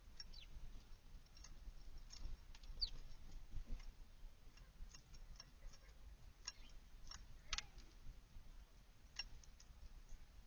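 Faint, scattered sharp chip notes and clicks from small backyard songbirds, with a couple of short falling notes among them.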